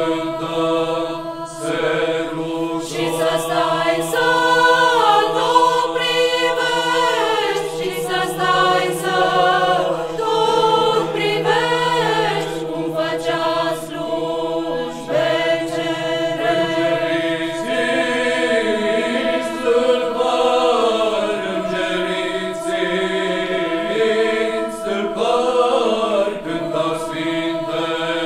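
Church choir of nuns and women singing a Romanian Christmas carol (colind) a cappella, the melody moving over long-held steady drone notes.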